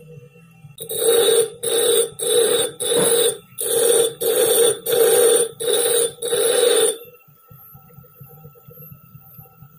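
Bench grinder wheel grinding a hardened Japanese plane blade in about eight short passes, each about half a second, as the blade is pressed to the wheel and eased off, rounding the edge for a scrub plane. About seven seconds in the grinding stops and the wheel spins freely with a faint steady whine.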